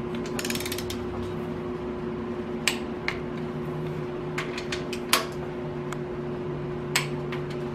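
Ratcheting torque wrench on intake manifold bolts: a quick run of ratchet ticks a little under a second in, then several single sharp metallic clicks as the wrench is worked from bolt to bolt. A shop fan hums steadily underneath.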